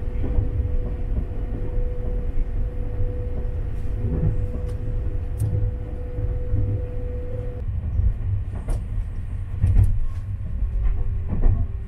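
Sunrise Express 285-series electric sleeper train running, heard from inside the carriage: a constant low rumble with a steady hum that cuts off about two-thirds of the way through. Near the end, sharp clicks of the wheels passing over rail joints.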